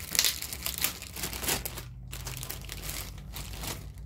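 Clear plastic packaging bag crinkling in quick, irregular crackles as a speaker is pulled out of it, with a short lull about halfway through.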